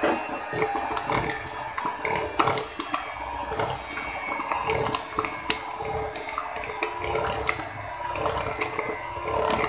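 White electric hand mixer running at low speed, its beaters whisking thick cupcake batter in a plastic bowl, with frequent clicks and knocks of the beaters in the bowl.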